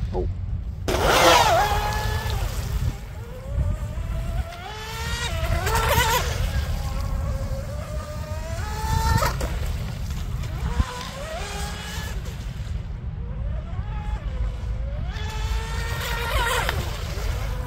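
Electric RC mono hull boat running at speed, its motor and propeller whine gliding up and down with the throttle and rising sharply several times as it accelerates down the straights. A steady low rumble runs underneath.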